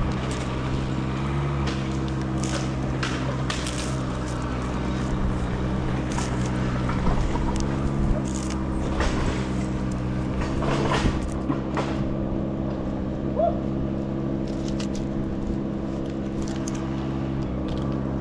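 An engine idling steadily, with scattered short knocks and rustles.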